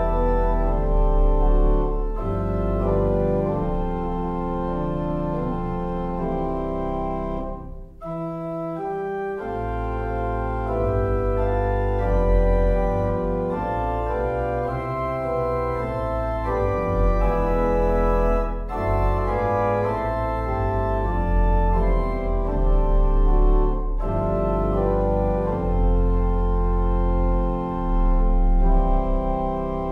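Organ playing slow, sustained chords over a deep pedal bass, with a brief break about eight seconds in.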